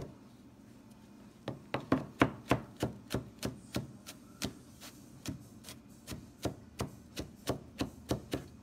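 Chef's knife chopping garlic on a plastic cutting board: a steady run of sharp knocks, about three a second, starting after a pause of about a second and a half.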